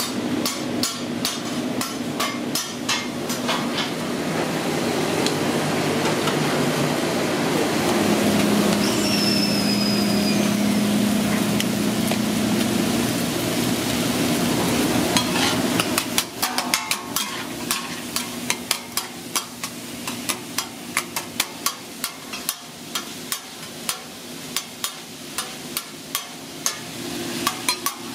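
Chopped ribeye sizzling on a steel flat-top griddle. From a little past halfway, the hiss eases and metal spatulas chop and scrape the steak against the griddle in quick, repeated clanks.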